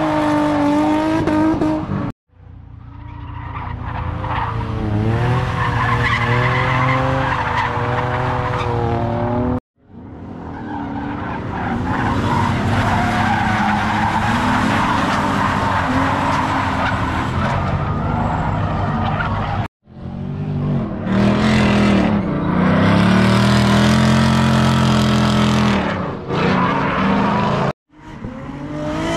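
Drift cars sliding sideways, engines held high in the revs with the pitch wavering as the throttle is worked, over the hiss and squeal of the tyres. The sound comes in several short pieces, each cutting out abruptly and fading back in.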